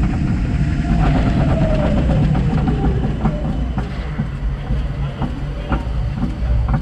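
Intamin single-rail roller coaster train rolling in on its final braking run: a loud running rumble with a whine that falls in pitch as the train slows, then sharp clacks as its wheels pass over the station's tire drives.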